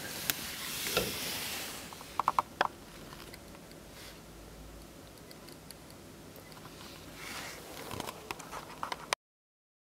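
Soft rustling and scraping, with a quick run of sharp little clicks about two seconds in and more near the end; the sound then cuts off suddenly.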